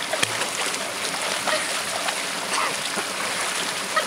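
Shallow creek water running steadily, with scattered small splashes and drips from a pit bull wading and ducking its head underwater.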